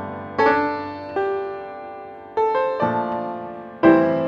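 Background piano music: single notes and chords struck every second or so and left to ring down.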